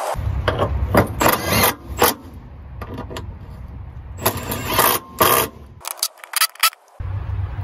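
Ratchet and bolts being worked on a transmission mount bracket: a run of short metallic clicks and rasps in several clusters, over a steady low hum that drops out for about a second near the end.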